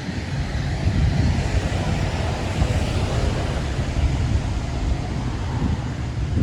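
City traffic noise: a steady low rumble buffeted by wind on the microphone, with a broad hiss that swells about two to three seconds in, like a vehicle passing on wet road.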